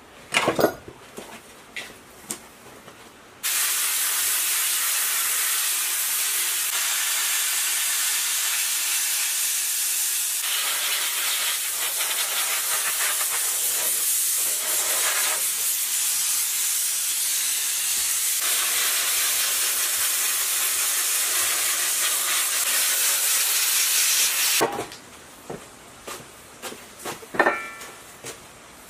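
Sandblasting gun hissing steadily as it blasts rust off a petrol generator's tubular steel frame. The hiss starts suddenly a few seconds in and cuts off about twenty seconds later. Quieter stretches before and after hold a few knocks as parts are handled.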